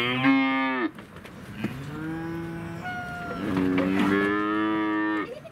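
Calves mooing: three long bawls one after another, the first dropping in pitch at its end and the last the longest.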